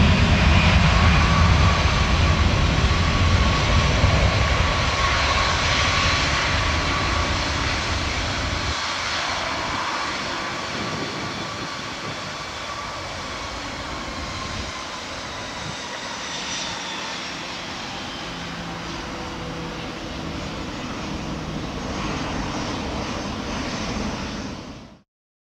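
Airbus A320-211's CFM56 turbofan engines at takeoff thrust as the jet rolls down the runway and climbs away: a loud jet noise with a faint whine. The deep rumble drops out about nine seconds in and the noise fades steadily as the aircraft recedes, then stops abruptly near the end.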